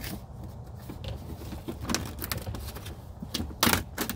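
Thin plastic vapor-barrier sheet being peeled off a car door's inner panel, crinkling and crackling in short bursts, with a louder rip about three and a half seconds in.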